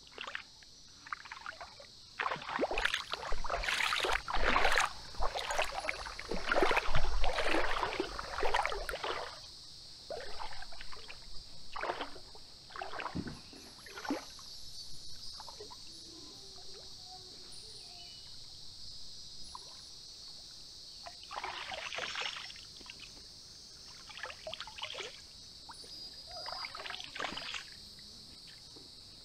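Shallow creek water splashing and sloshing in irregular bursts as someone wades in, loudest in the first third. A steady high-pitched drone runs underneath.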